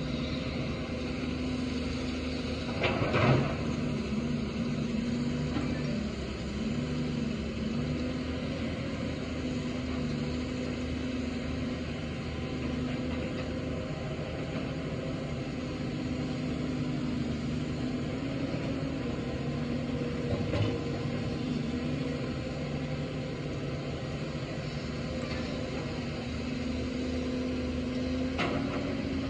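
Caterpillar 320D hydraulic excavator's diesel engine running steadily, its pitch dipping and recovering as the hydraulics take load while it digs soil. A few sharp knocks come through, the loudest about three seconds in and two more later on.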